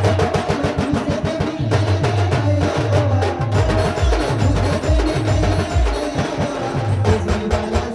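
Adivasi band playing a rodali/timli dance tune: fast, dense drum and percussion strokes with deep repeated bass thumps under a held melodic line.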